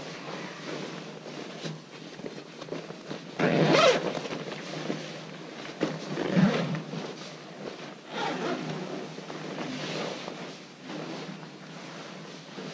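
Zipper of a Gore-Tex USMC improved bivy bag being pulled closed from inside, in several rough strokes mixed with rustling of the bag's fabric; the loudest stroke comes about three and a half seconds in.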